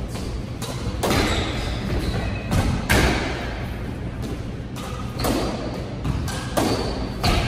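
A squash doubles rally: the ball is struck by racquets and strikes the court walls, making sharp knocks at an uneven pace, about one every second or so, each echoing briefly in the enclosed court.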